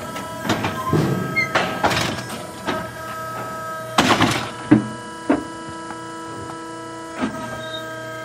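Steel livestock squeeze chute clanking and banging as its side doors and gates are worked open to let a horse out: a series of metal knocks, the loudest about four to five seconds in, over steady held tones.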